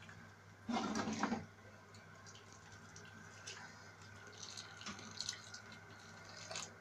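Hot water poured from a metal kettle into a metal pot of chicken in tomato sauce: a louder splashing pour about a second in, lasting under a second, then fainter trickles and drips.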